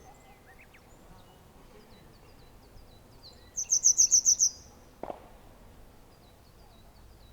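A songbird's call: a rapid run of about eight very high notes in the middle, over fainter high chirps repeating in the background. A short knock follows about a second later.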